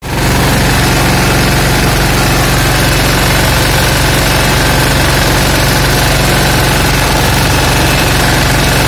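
Escort Steeltrac 15 hp mini tractor's engine running steadily at road speed, loud, with a fast, even throb.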